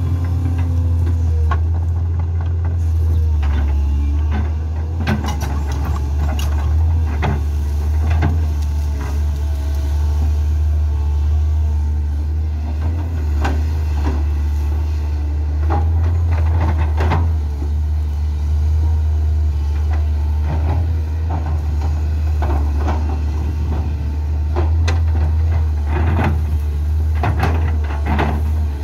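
Matador ME220 crawler excavator's diesel engine running under load, a steady low drone. Over it come frequent irregular sharp cracks and snaps as the bucket tears through dry brush.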